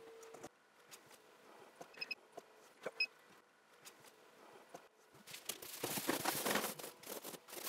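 Handling noise from closing up a styrofoam cooler with a hot plate inside: a few light clicks and taps, then about two and a half seconds of rustling and scraping near the end.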